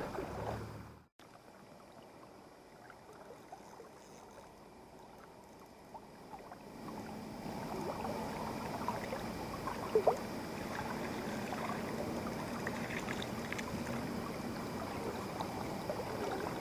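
Shallow river water sloshing and trickling with small scattered splashes, quiet at first and louder from about seven seconds in; one short, sharper splash about ten seconds in.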